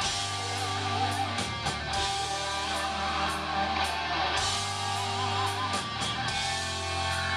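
Heavy metal band playing live: electric guitars over a sustained bass line, with steady drum hits.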